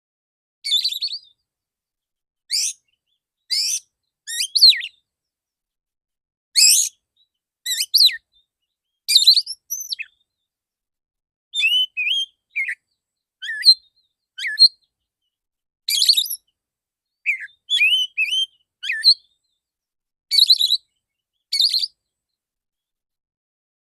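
Male oriental magpie-robin singing: a run of about twenty short, loud whistled phrases of varied pitch, each under a second long, with brief pauses between them.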